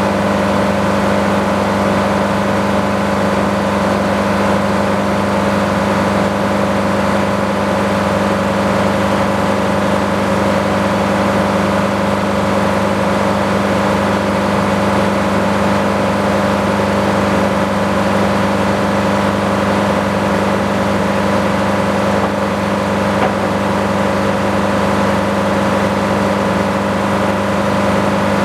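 Sawmill running steadily at a constant pitch, its engine and blade making an unchanging hum with no break.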